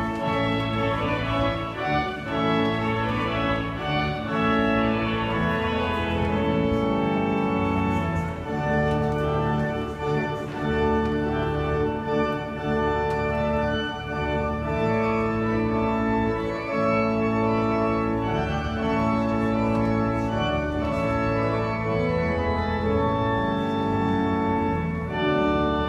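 Pipe organ in Glasgow Cathedral playing held chords over a low bass line, the chords changing every second or two.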